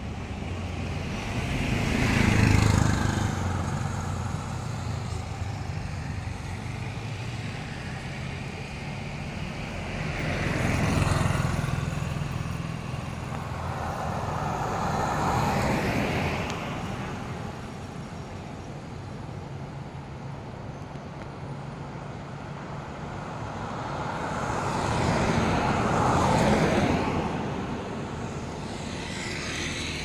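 Road traffic: vehicles passing one at a time, each swelling up and fading away, about five passes over a steady background hum.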